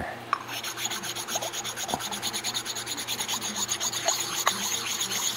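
An abrasive block rubbed back and forth over the wet aluminum face of a 4L60E 1-2 accumulator housing, in quick even scraping strokes about four or five a second. This is lapping the warped sealing face flat so that the hydraulic circuit will not leak.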